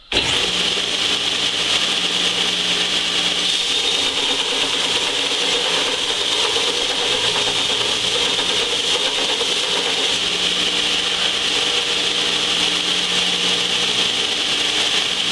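Large heavy-duty belt sander running, its abrasive belt grinding the flange face of a hard cast-iron Ford exhaust manifold held flat against it to resurface the warped flanges flat. A loud, steady rasping hiss over a motor hum, starting abruptly.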